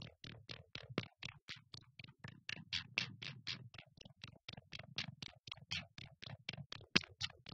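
Electronic soundtrack of short, clicking pulses in a rapid, uneven stream, about four or five a second, with a few louder hits, one about a second in and one near the end.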